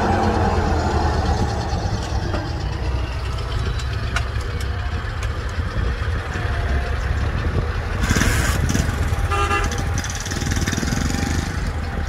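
Diesel engines of farm machinery (a forage harvester and a tractor) running steadily with a low drone. There is a short burst of hiss about eight seconds in and a brief high tone about a second later.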